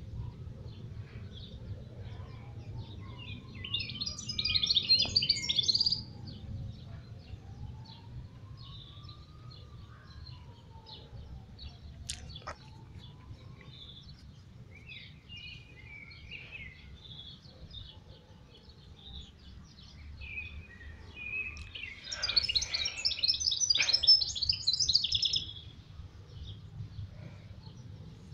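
A pet mestiço, a canary-cross hybrid finch, singing in two loud bursts of rapid high twittering, one about 4 s in and one about 22 s in, each lasting a few seconds, with scattered short calls between them. A steady low rumble runs underneath.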